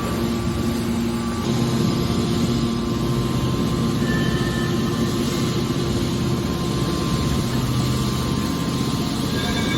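Hydraulic metal press baler running: a steady machine drone with a few held tones.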